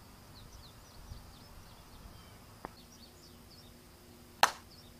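DeMarini softball bat striking a pitched softball once, a single sharp hit near the end, over faint bird chirps.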